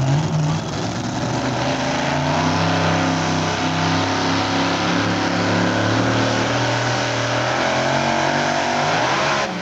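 Supercharged, open-header engine of a mini modified pulling tractor running hard at high, fairly steady revs under full load while pulling the sled.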